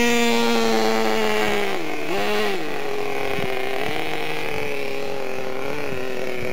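Small nitro glow engine of a radio-controlled truck running at a steady high pitch. The pitch dips briefly about two seconds in and climbs back, with a couple of small throttle blips later.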